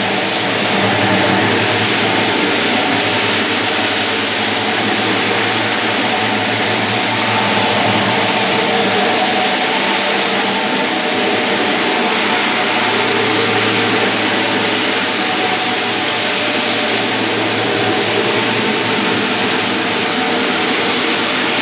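Electric marble floor polishing machine running steadily, its motor and rotating head making a loud, even hum and whine as it works over a marble tile floor.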